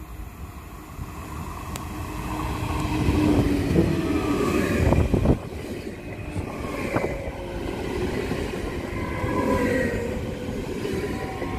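Electric passenger train approaching and passing close by at speed. A rumble grows and is loudest as the front of the train goes past about five seconds in, then the coaches keep up a steady rolling wheel-on-rail rumble.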